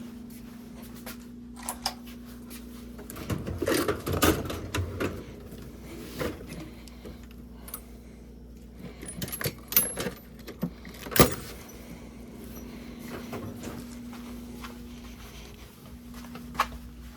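Metal socket tools clinking and clattering as a swivel socket is fitted and used on the battery tray bolts, in irregular bursts with a sharp metallic click about eleven seconds in. A faint steady hum runs underneath.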